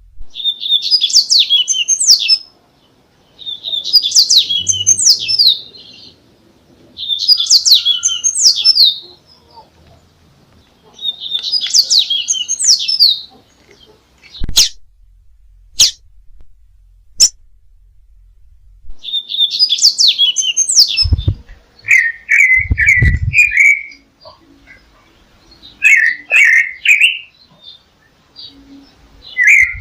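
Songbird singing loud, high phrases of about two seconds each, repeating every three to four seconds, with a few sharp clicks in the pauses. Later come shorter, lower-pitched phrases in quick repeats: a birdsong recording meant to teach caged songbirds.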